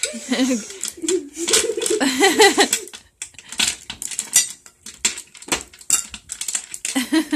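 Hard candy canes clattering against one another and a glass tabletop as they are hooked out of a pile with a candy cane held in the mouth: a stream of quick, irregular clicks and taps.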